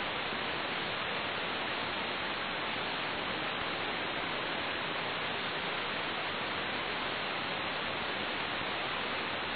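Steady radio static filling the gap between air traffic control transmissions on the aircraft's recorded radio audio: an even hiss with no tone in it.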